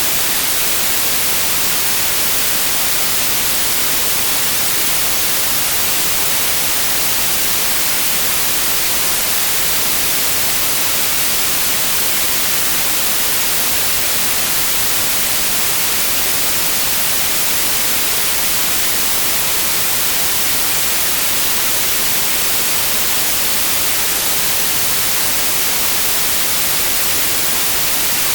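Steady white noise: an even, unchanging hiss with most of its energy in the high frequencies.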